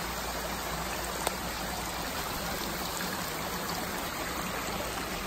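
Small waterfall on a rain-swollen mountain stream: a steady rush of falling and flowing water.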